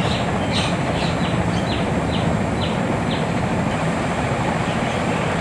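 Steady hiss-like background noise, with about eight short high chirps, roughly two a second, during the first three seconds.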